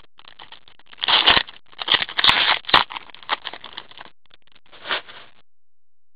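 Upper Deck hockey card pack opened by gloved hands: the wrapper crinkling and the cards sliding and clicking against each other in irregular rustles. The rustling stops about five and a half seconds in.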